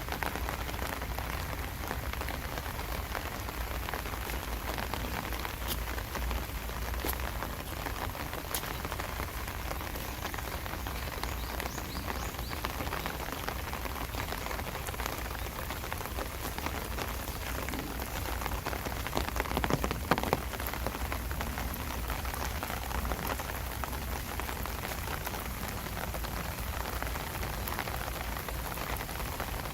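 Steady rain falling, with a few sharp single-drop ticks and a brief louder spell about twenty seconds in.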